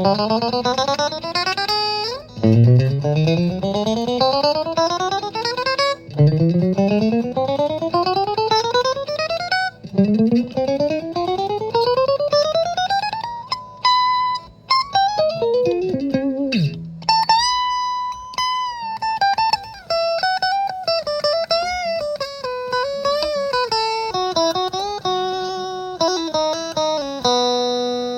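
1979 Fender Stratocaster electric guitar through an amplifier, played fret by fret up the neck in four rising runs of notes to check every fret after reassembly. The runs are followed by a note that drops steeply in pitch, then held notes and a short melody with vibrato.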